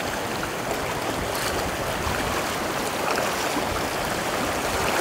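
Shallow, fast mountain stream rushing steadily over stones, with splashing from bare feet wading through it.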